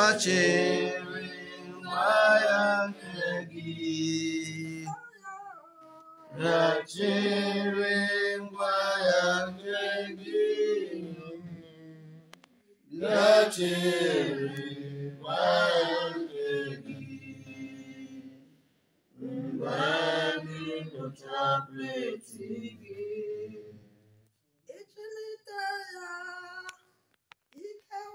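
Voices singing a slow, chant-like hymn in phrases of a few seconds with short pauses between, fading near the end.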